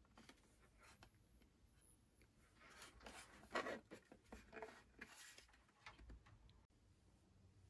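Faint handling noises from the plastic base of a plasma globe lamp being turned over in the hands: soft rubbing and light knocks of fingers on plastic, loudest in the middle.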